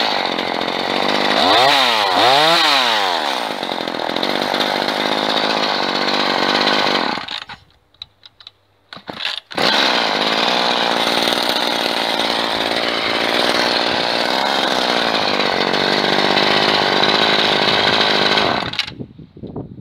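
A small engine revving up and down, then running steadily. It drops out for about two seconds near the middle and cuts off shortly before the end.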